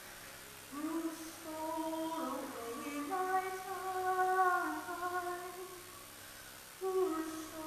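A woman singing a broadside ballad unaccompanied, in held notes. A phrase begins about a second in, and there is a breath pause before the next phrase starts near the end.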